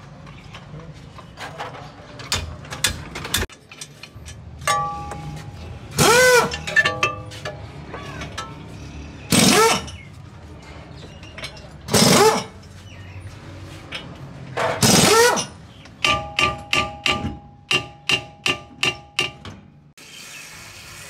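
Spanner work on a car's brake caliper and hub: metal clinks and ratchet-like clicking, with four loud rasping strokes and a quick run of ringing clicks near the end. An aerosol can hisses in a brief spray at the very end.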